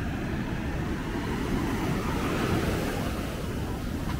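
Ocean surf breaking and washing up the beach, with wind rumbling on the microphone; the wash swells briefly about two seconds in.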